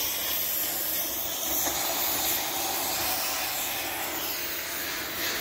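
A steady, even hiss with no distinct tones or knocks.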